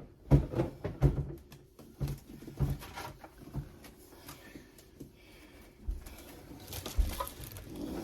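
Irregular knocks and thumps of containers and refrigerator parts being handled while the fridge is emptied and cleaned. They come several to a second in the first few seconds, then fall to a couple of single knocks.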